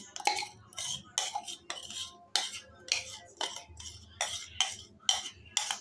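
Metal spoon scraping green chutney out of a small mixer-grinder jar, in quick repeated strokes a little over two a second.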